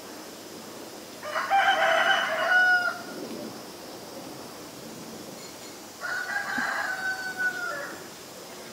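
A rooster crowing twice: one long crow about a second in and another about six seconds in, the second a little quieter.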